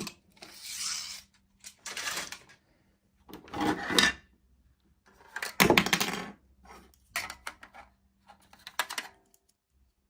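Toys being handled: about six short bursts of rubbing and clicking spread over several seconds.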